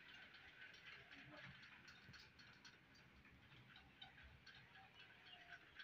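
Near silence: room tone with faint scattered ticks and clicks.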